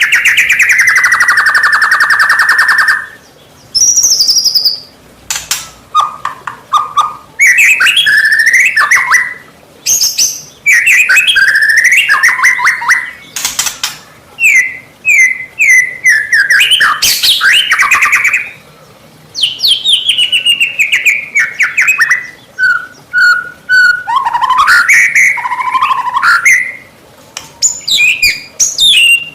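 White-rumped shama (murai batu) singing in full song: a loud run of varied phrases of rich whistles, falling glides and rapid trills, separated by short pauses.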